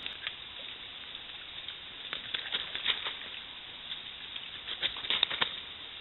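Steady hiss from a trail camera's microphone, with irregular clusters of light ticks and crackles about two seconds in and again near the end.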